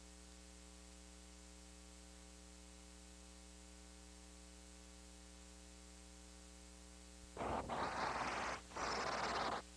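Faint steady electrical mains hum with a buzz of evenly spaced overtones. About seven seconds in, a much louder rushing noise cuts in and breaks off briefly a couple of times.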